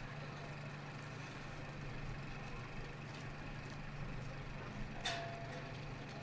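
A vehicle engine running steadily, a low even hum under outdoor background noise, with one sharp click about five seconds in.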